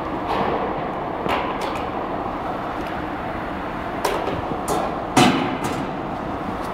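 Steady din of packing-line machinery, broken by irregular sharp clatters and knocks of machine parts and crates. The loudest knock comes about five seconds in.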